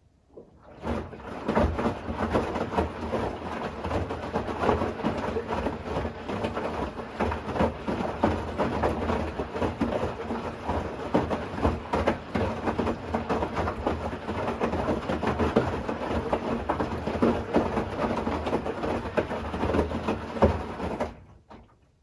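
Bosch Series 6 i-dos front-loading washing machine's drum turning the wet wash load during the wash phase: a churning swish of water and clothes over a low motor hum. It starts about a second in and stops abruptly near the end, one turn-and-pause of the drum.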